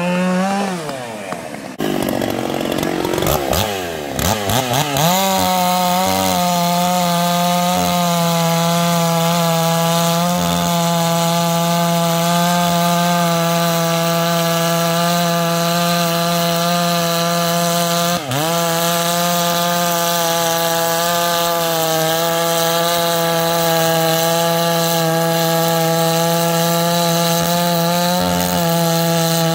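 Two-stroke chainsaw revved up and down a few times, then held at steady high revs, as in a long cut through wood. About eighteen seconds in, the revs dip sharply for a moment and recover.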